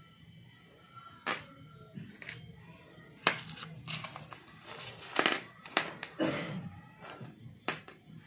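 Brown paper wrapping crinkled and unfolded by hand, with sharp clicks of small steel engine parts (rocker arms) being handled and set down on a concrete floor. The paper rustling is thickest in the middle, between scattered single clicks.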